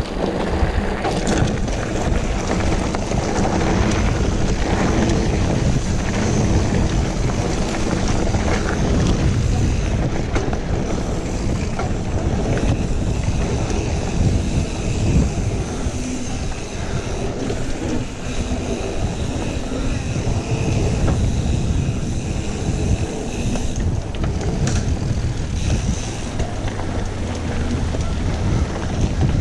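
Wind buffeting an action camera's microphone on a mountain bike moving fast down dirt singletrack, mixed with the rumble and rattle of the tyres and bike over the trail. The noise is loud and continuous, with an uneven, jittery rumble.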